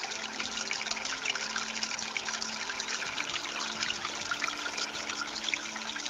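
Water trickling and splashing down the stones of a concrete and natural-stone tabletop fountain into its pool, a steady small-fall patter.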